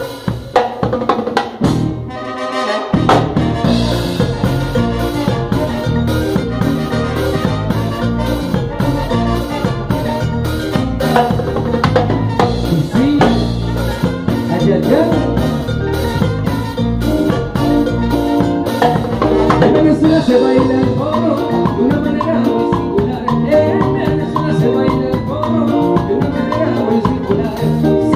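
Live salsa band playing: drums and percussion keep an even beat, the bass drops out briefly about two seconds in, then the full band comes in with moving melodic lines over the rhythm.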